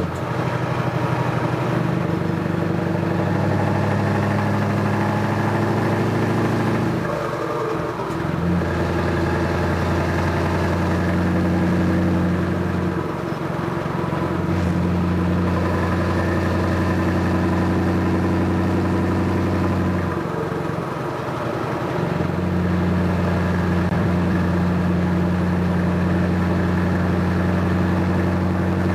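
Scania 580 V8 truck diesel engine running steadily on the road, heard from the cab, with a deep even engine note. The note drops away briefly about seven seconds in and again around twenty seconds in, then picks up again.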